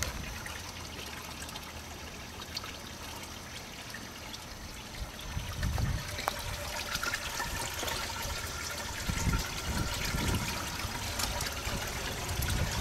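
Water pouring from a PVC return pipe into an aquaponics fish tank, a steady trickle and splash of the circulating water, getting louder near the end.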